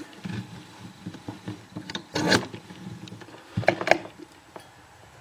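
A clear acrylic padlock being handled and set into a small vise: scattered light knocks, a louder scraping clatter about two seconds in, and a few sharp clicks near four seconds.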